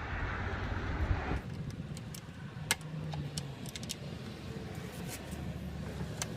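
Sharp metallic clicks and clinks as the positive cable is worked off the car battery terminal, a few separate clicks over several seconds, after a rushing noise that stops about a second and a half in.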